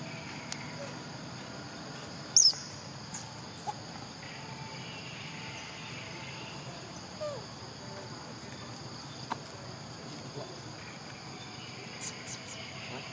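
Steady high-pitched chorus of insects, with a short, sharp high chirp sliding down in pitch about two seconds in and a few faint clicks.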